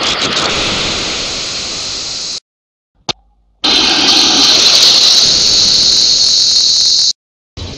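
Loud, harsh hiss of distorted audio like static, strongest in the upper range, cutting off abruptly about two and a half seconds in; after a brief click it returns a second later and cuts off abruptly again near the end.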